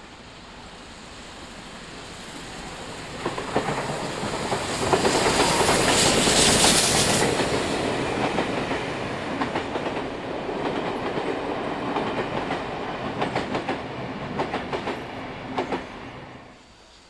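Steam-hauled passenger train of 3526 and 3801 passing close by. The locomotive's noise builds to a peak about six seconds in, then the carriage wheels clatter over the rail joints in rapid clicks. The sound stops suddenly near the end.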